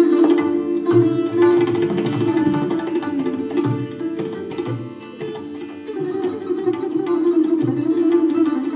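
Live Hindustani classical music: a sitar plays a melody over a steady drone, accompanied by tabla strokes with deep, resonant bass-drum strikes every second or so.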